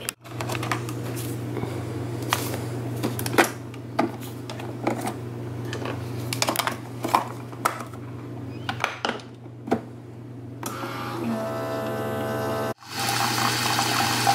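Keurig single-serve coffee maker being loaded and run: clicks and knocks of the lid and pod over a steady hum, then, near the end, a short whirr and the steady hiss of coffee pouring into the mug.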